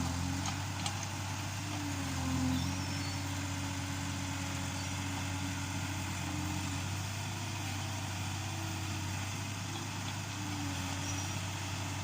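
Yanmar B37 mini excavator's diesel engine running steadily, its pitch dipping briefly a few times.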